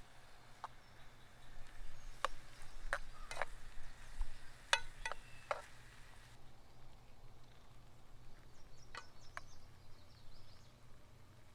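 Irregular sharp knocks and clicks, about nine in all, bunched in the first half with two more later, a few of them with a brief ringing tone.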